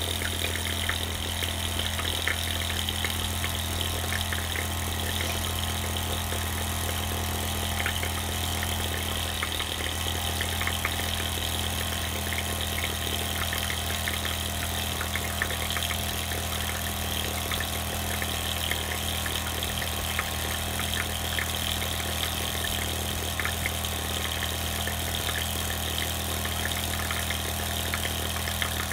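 Two small Mamod SE2 model steam engines running side by side in steam. A steady mechanical running sound with a continuous hiss and a patter of small rapid ticks.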